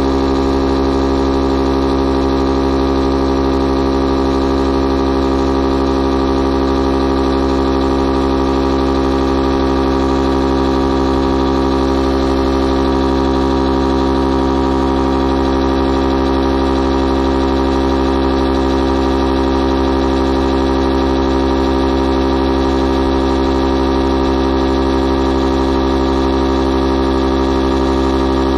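Electric inflation pump running steadily as it pumps air through its hose into an inflatable boat's tube: a loud, constant motor hum that does not change in pitch.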